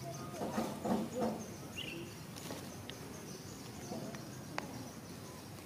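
Outdoor ambience of insects and birds, with a short burst of voice-like calling about a second in, a brief high chirp soon after, and a few light clicks.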